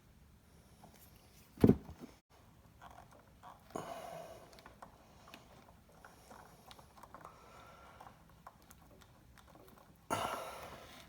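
Handling noises from work on a motorcycle turn-signal light: small plastic clicks, a sharp knock about a second and a half in, a short scrape around four seconds in, and a louder rustling scrape near the end.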